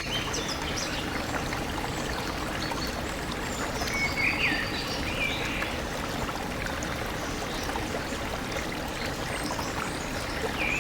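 A stream flowing steadily, with short bird chirps at the start and again about four seconds in.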